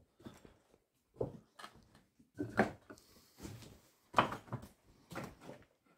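Footsteps over loose slate rubble and scattered wooden boards: uneven knocking and clattering steps, about one every half second to a second.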